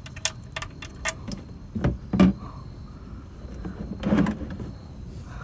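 Handling noises while draining the oil: a run of light clicks as the oil drain plug is turned out by hand, then two heavier knocks about two seconds apart, the second as the plastic drain pan is shifted under the stream of draining oil.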